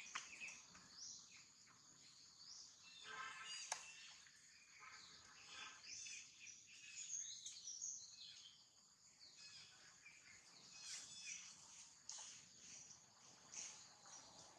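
Faint outdoor ambience: scattered bird chirps over a steady high-pitched hiss, with a single sharp click about four seconds in.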